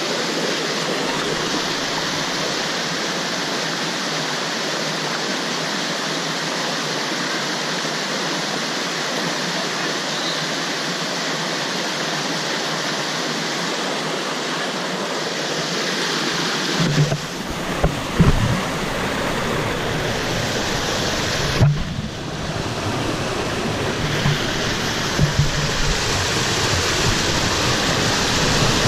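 Waterfall rushing steadily. From a little past halfway, a few low thumps and rumbles come in over it.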